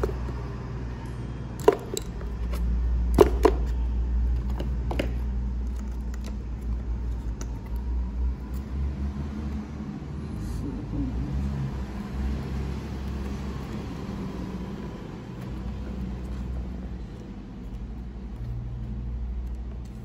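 Small plastic wire connectors being handled and pushed onto a drone's flight controller pins, giving a few sharp clicks in the first five seconds. Under them runs a low rumble.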